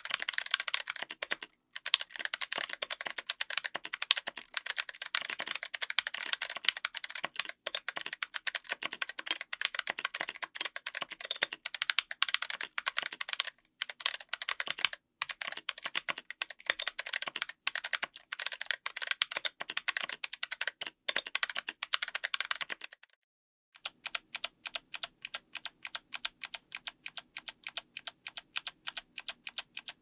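Fast, continuous typing on a mechanical keyboard with Kailh BOX Summer clicky switches under SA-profile ABS keycaps, on an FR4 plate in an aluminum case: dense, crisp clicky keystrokes. After a brief pause about 23 seconds in, keys are pressed one at a time at a slow, even pace.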